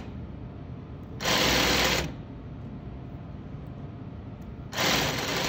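Industrial sewing machine running in two short stitching runs as it sews invisible-zipper tape down. One run lasts under a second; the second starts near the end and carries on.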